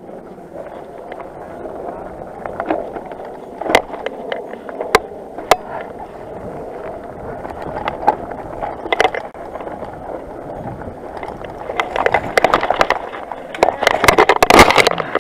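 Mountain bike rolling fast down a rough dirt trail: steady tyre and rattle noise with sharp knocks over bumps. Near the end, a burst of loud clattering and impacts as the rider crashes into a wire fence, the loudest moment.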